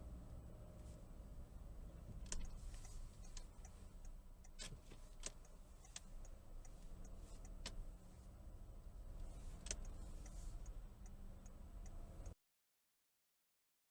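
Faint low engine and road rumble inside a car creeping in slow traffic, with scattered sharp clicks and lighter ticks over it. It cuts off abruptly about twelve seconds in.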